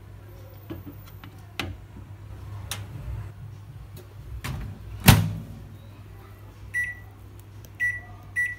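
Microwave oven being loaded and set: a few light clicks and knocks as the bowl goes onto the turntable, the door shut with one loud thump about five seconds in, then three short, high keypad beeps as the power setting is chosen. A low steady hum runs underneath.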